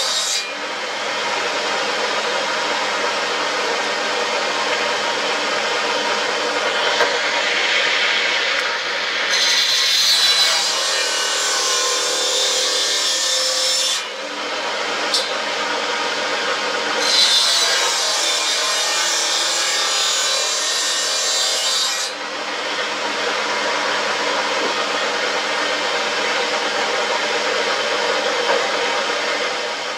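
Table-mounted circular saw running and cutting through a wooden cricket bat handle, a steady, dense sawing noise. Two louder, harsher stretches come around ten seconds in and again around eighteen seconds in, each starting and stopping abruptly.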